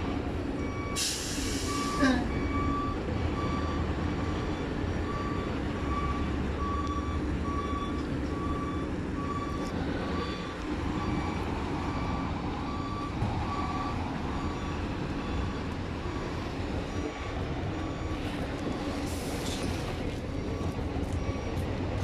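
Heavy vehicle's reversing alarm beeping about once a second over a steady diesel engine rumble, stopping about two-thirds of the way through. Two short bursts of air hiss come in, one near the start and one near the end.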